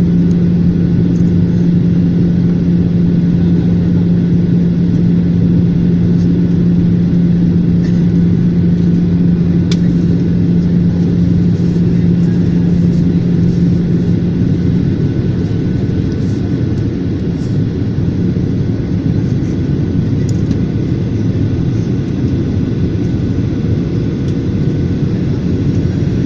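Airliner cabin noise on descent: the steady low rumble of the jet engines and airflow heard from inside the cabin. A steady low drone within it stops about halfway through, leaving the rumble.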